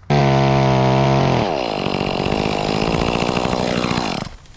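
Chainsaw running at high revs, then the revs fall and it runs on at a lower pitch before cutting off about four seconds in.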